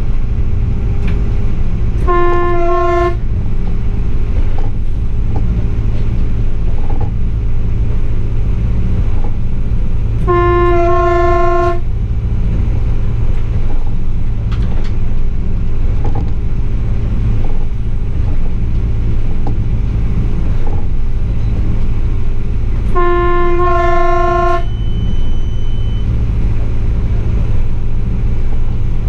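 Class 840 RegioSpider diesel railcar running with a steady low rumble of engine and wheels on the track, as its two-tone horn sounds three short blasts, about two seconds in, about ten seconds in and about twenty-three seconds in, each shifting from one note to the other.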